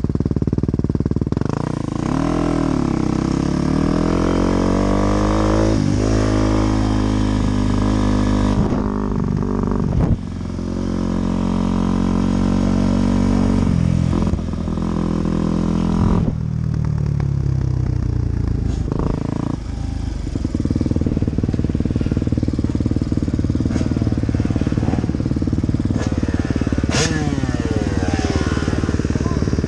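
Dirt bike engine accelerating hard through the gears, its pitch climbing and dropping back at each upshift, then easing off and slowing down. A second dirt bike's engine is heard alongside near the end.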